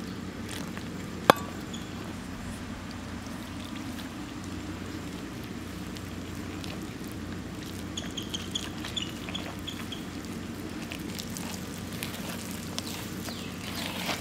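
Water being poured into gram-flour bajji batter in a steel bowl and mixed in by hand: small wet squelches and ticks, more frequent in the second half, over a steady low hum. A single sharp click about a second in.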